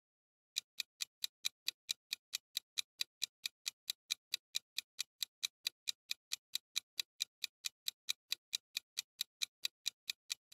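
Countdown timer sound effect: steady clock-style ticking, about four to five ticks a second, starting just under a second in.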